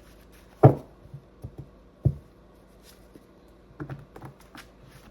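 A few sharp knocks on a hard surface: a loud one under a second in and another about two seconds in, with lighter clicks between and near the end.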